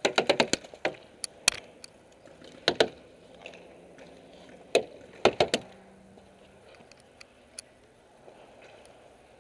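Paintball markers firing: a rapid string of about seven shots in the first second, then scattered single shots and short quick bursts of two or three, thinning out after about six seconds.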